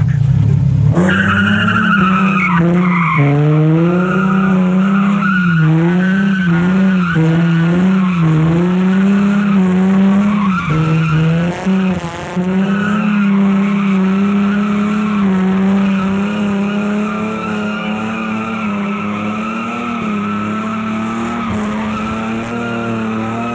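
Nissan 350Z drift car's V6 held high in the revs through continuous donuts, its pitch wavering up and down with the throttle, over tires squealing and scrubbing on wet concrete. The revs and level drop briefly about eleven seconds in, then pick up again.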